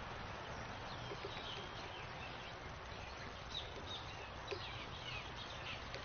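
Faint, short high chirps and calls of small songbirds, scattered over a steady outdoor hiss, with two soft taps about midway.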